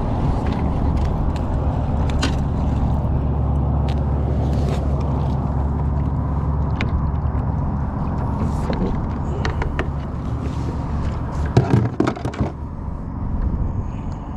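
Spinning reel cranked and line worked while fighting a hooked bass from a kayak, under a steady low rumble with scattered clicks. A burst of loud knocks and rattles about twelve seconds in as the fish is brought aboard.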